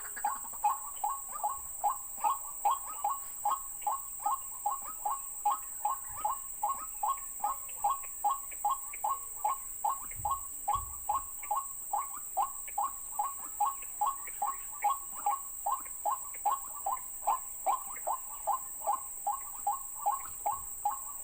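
Call of a white-breasted waterhen played from an MP3 recording as a lure: a long run of short repeated notes, about three a second, going on steadily without a break. A faint steady high-pitched hum lies underneath.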